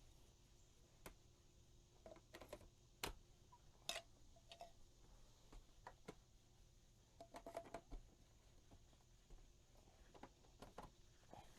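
Faint, scattered light clicks and knocks of composite raised-bed boards and plastic brackets being handled and set in place. The sharpest clicks come about three and four seconds in, with a quick cluster a little past seven seconds.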